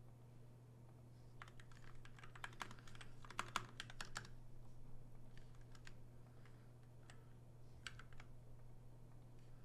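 Faint typing on a computer keyboard: a quick flurry of keystrokes from about one and a half to four seconds in, then a few scattered keystrokes near the end, over a steady low hum.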